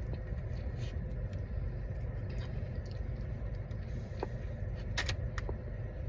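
Someone chewing a cheeseburger, with a few faint short clicks, over a steady low rumble in the background.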